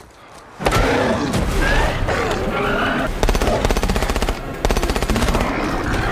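Automatic rifle fire in rapid, loud bursts, starting about two-thirds of a second in after a short hush, with yelling voices over the first bursts. This is a film soundtrack.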